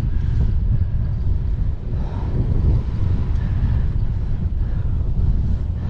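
Wind buffeting the microphone on an e-bike under way at speed, a steady low rumbling rush with no clear engine or motor note above it.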